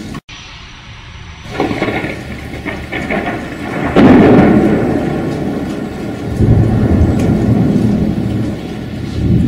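Thunderstorm: thunder rumbling and building to a loud clap about four seconds in, then rolling on over steady rain. The sound cuts out for an instant near the start.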